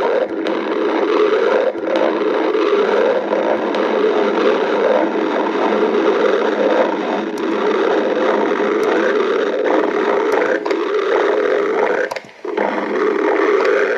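Stomach growling: a long, continuous rumble that breaks off briefly about twelve seconds in, then resumes.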